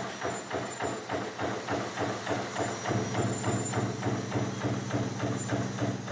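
Razor wire production machinery running, with a fast, even clatter of about five strokes a second over a steady motor hum.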